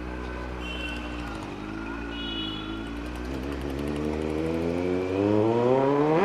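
Kawasaki Z900's inline-four engine running low at first, then revving up in a steady climb for about three seconds as the bike pulls away. It gets louder as the pitch rises, then drops suddenly at the end.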